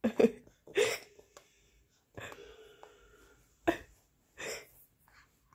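Baby making several short, breathy gasping sounds at irregular intervals, with a quieter drawn-out breath in the middle.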